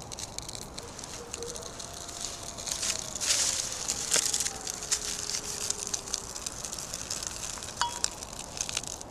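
A small fire of wood shavings and bark catching in a stainless steel camp stove's fire base: sharp crackles throughout, with a brief louder hissing rush about three seconds in as the flames take hold.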